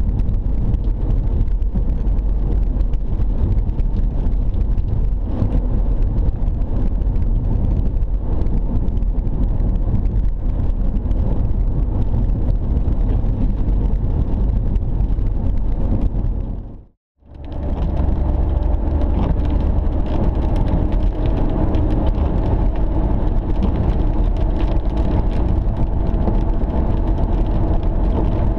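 Steady cabin noise of a car driving on wet roads in heavy rain: tyre and road rumble with rain on the car body. The sound fades out and straight back in once, about two-thirds of the way through.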